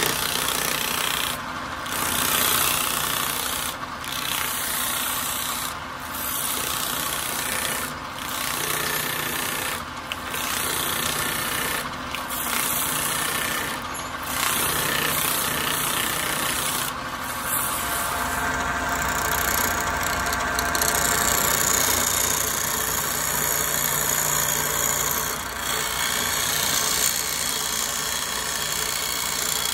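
Sandpaper rubbing against the inside of a wooden bowl spinning on a wood lathe: a loud, even rasping hiss with short breaks about every two seconds. About two-thirds of the way through it changes to a steadier sound as a turning tool cuts the outside of the spinning piece.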